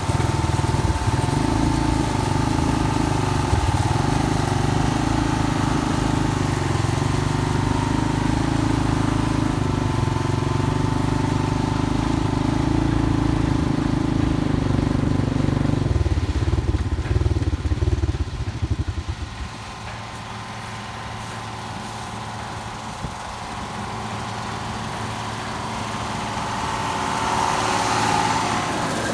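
Self-propelled draper swather cutting oats: its engine runs loud and steady with a faint steady whine, then falls away about seventeen seconds in, and builds again near the end.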